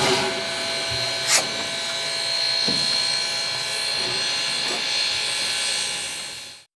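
Steady hiss of steam from a standing narrow-gauge steam locomotive, with several steady tones running through it and one sharp click about a second and a half in. The sound fades out near the end.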